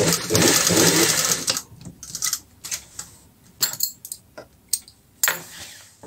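Industrial sewing machine stitching fast for about a second and a half, then stopping. Scattered clicks and fabric rustling follow as the cloth is pulled out from under the presser foot and handled.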